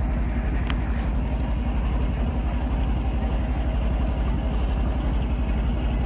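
An engine idling steadily.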